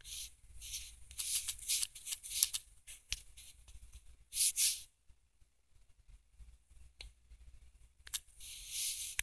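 Handling noise: thin, hissy rustling in bursts with a few sharp clicks and a quiet stretch of a few seconds in the middle.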